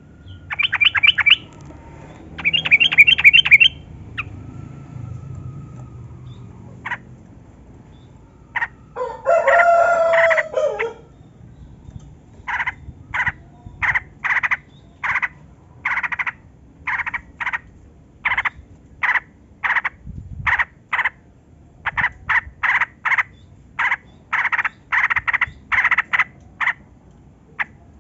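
Yellow-vented bulbul calling: two short, fast chattering bursts near the start, then from about twelve seconds in a long run of short clipped notes, roughly two a second. A rooster crows once, about nine seconds in.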